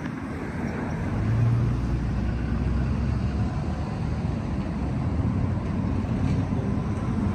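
Low steady rumble of a vehicle on a city street, a little louder about a second and a half in.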